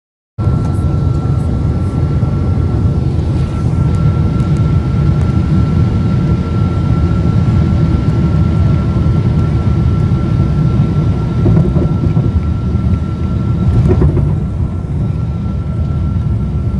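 Loud, steady low rumble inside the cabin of a Boeing 777-200 in flight, from its disintegrated right engine with the front cowling torn away, after an uncontained engine failure. A thin, steady high whine sits above the rumble.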